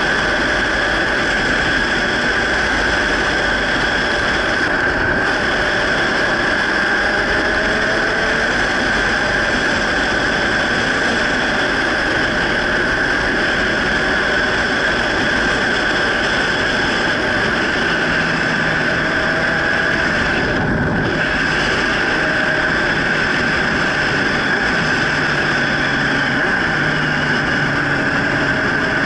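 Motorcycle riding at city-street speed heard from a bike-mounted action camera: a steady rush of wind and road noise, with a faint engine note underneath that rises slowly now and then.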